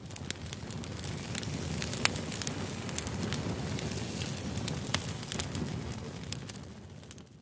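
Wood fire crackling, with a steady hiss and scattered sharp pops, the loudest about two and five seconds in; it fades in at the start and fades out near the end.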